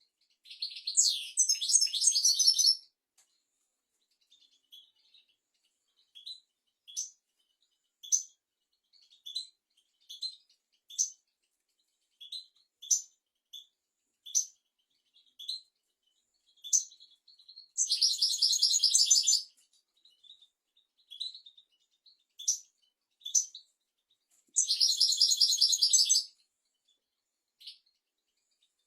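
European goldfinch singing: three rapid, twittering song phrases of a second or two each, one near the start, one about two-thirds through and one near the end, with single short chirps scattered between them.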